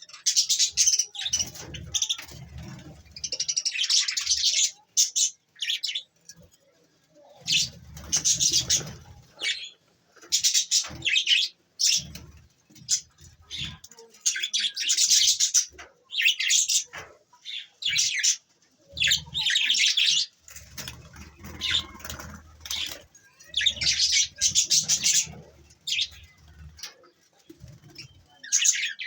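Budgerigars chattering and chirping in repeated bursts of about a second each, with short pauses between.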